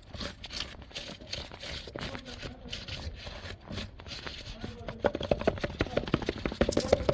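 Hands-on fitting noises: scraping, rustling and scattered clicks, then a louder fast run of clicks with a steady hum about five seconds in.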